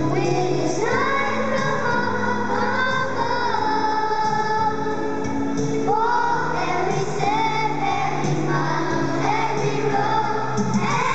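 A group of voices singing a church song with instrumental accompaniment; held low notes sound under the singing.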